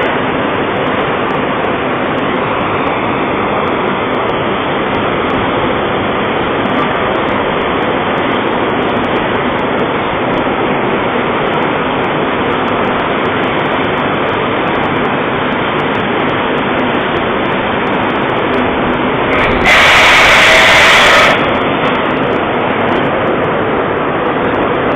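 Steel section rolling mill running: a loud, steady machine noise from the mill and its cooling bed, with small metallic clicks throughout. A louder hiss lasts about two seconds near the end.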